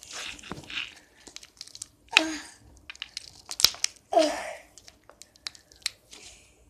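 Slime being squeezed and kneaded by hand, giving sticky clicks and pops with two louder squelches about two and four seconds in.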